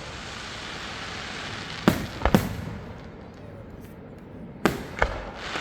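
Aerial fireworks bursting: a sharp bang about two seconds in with two more close behind, then two more bangs near the end, over a steady hiss.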